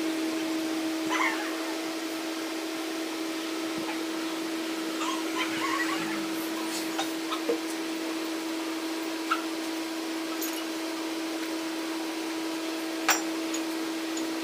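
Light metallic clicks and clinks as engine parts are handled on a motorcycle engine's open crankcase and clutch, the sharpest click about 13 seconds in, over a steady hum.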